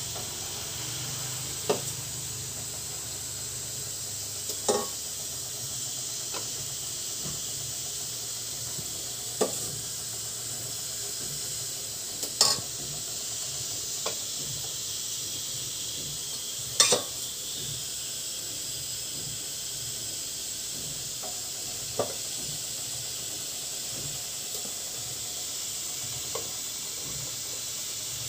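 Steady hiss of a steamer pot heating on the stove, broken by about eight short, sharp clinks and knocks as small plastic cups of batter are set onto the metal steamer tray and a spoon works in a bowl.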